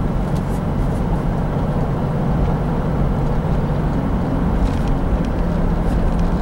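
Cabin noise of a 1997 Chevrolet Blazer on the move: its 4.3 Vortec V6 runs at a steady cruise as a low drone, mixed with tyre and road noise.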